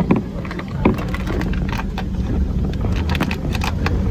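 New York City subway train running on the rails: a steady low rumble with a string of sharp clacks and squeals from the wheels on the track.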